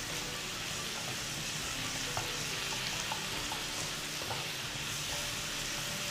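Broccoli, cauliflower, carrot and tofu sizzling as they stir-fry in a frying pan, with a steady hiss throughout. A few light clicks of the spatula against the pan sound as the food is stirred.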